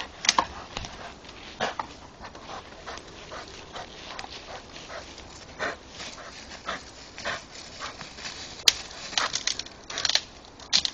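A German Shepherd panting as it bites and wrestles a dead tree branch, with irregular scuffling through dry leaves and sharp cracks of wood, the loudest about two-thirds of the way in and again near the end.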